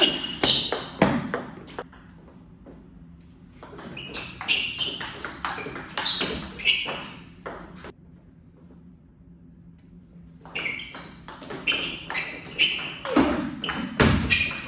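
Table tennis rallies: the ball clicking sharply off paddles and the table in quick back-and-forth succession. The rallies come in three bursts separated by quiet gaps between points, with the second starting about four seconds in and the third about ten and a half seconds in.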